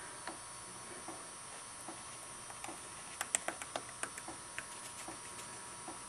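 Faint scattered taps and ticks of a paintbrush dabbing a coating onto carved foam scenery and knocking against its cup, with a cluster of sharper ticks about three seconds in. A faint steady hum runs underneath.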